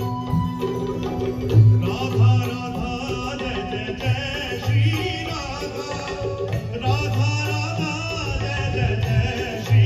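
Devotional bhajan music: a harmonium holding steady reed chords over regular drum beats, with a man's voice singing a wavering melody from about two seconds in.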